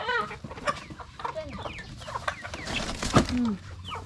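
Dong Tao chickens clucking, many short overlapping calls. A sharp knock about three seconds in is the loudest sound, and a low falling call follows it.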